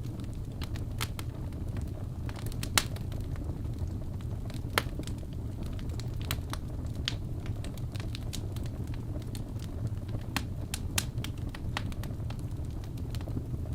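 Wood fire burning in a fireplace: a steady low rumble of flames with irregular sharp crackles and pops, two louder pops about 3 and 5 seconds in.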